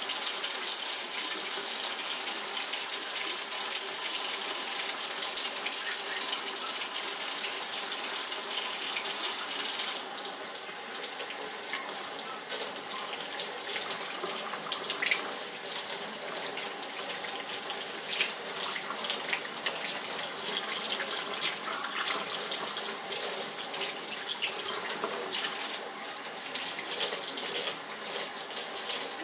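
Kitchen faucet running into a stainless steel sink, its stream splashing over hands rinsing a wet puppy. The steady hiss of water drops about ten seconds in and turns into uneven splashing.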